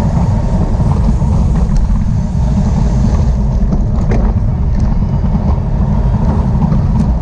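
Loud, steady wind rumble on the microphone of a camera moving at riding speed with a bicycle, with a few faint ticks over it.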